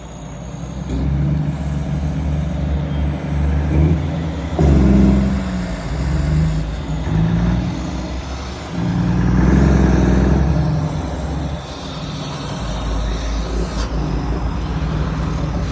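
Volvo FH semi-truck diesel engines with aftermarket exhausts rumbling as the trucks move in a slow convoy, the engine note swelling louder about five seconds in and again near ten seconds.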